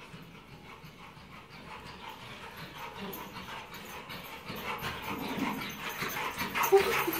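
Dogs panting, growing steadily louder as they come close.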